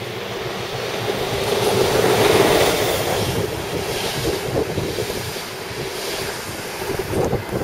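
An ÖBB electric locomotive and its passenger coaches passing close by at speed. The noise of the train rises to its loudest about two seconds in, as the locomotive goes by, then stays high as the coaches keep running past.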